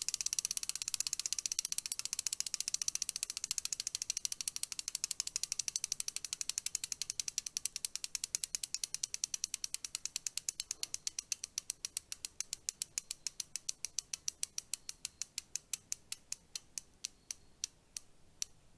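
Bicycle wheel coasting with its freewheel hub's ratchet pawls clicking. The clicks are rapid at first and spread steadily further apart as the wheel slows, down to a couple of clicks a second near the end.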